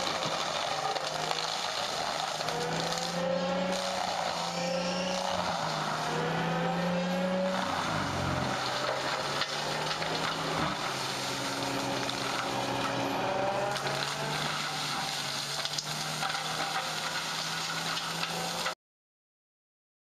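Walking excavator's diesel engine running under load while its hydraulic mulching head grinds down a standing tree trunk. The engine's pitch wavers, drops about eight seconds in and then holds steady over a rough shredding noise. The sound cuts off abruptly near the end.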